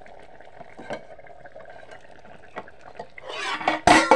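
Potato-tomato curry simmering in a steel kadhai, with small scattered pops. Near the end there is a rush of noise and one loud clatter of steel as the lid is taken off the pan.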